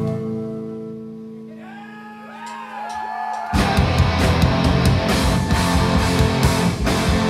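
Live instrumental progressive metal band: a held, sustained guitar chord fades out, sliding notes curve up and down, then about three and a half seconds in the full band crashes in loud with heavy distorted guitars and drums.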